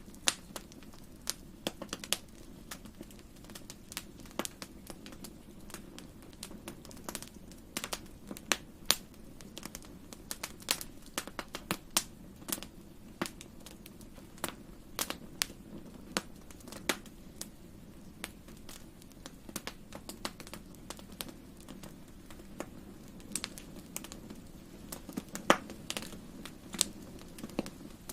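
Wood fire crackling in a fireplace: irregular sharp pops, at times several a second, over a low steady rumble, with one louder pop near the end.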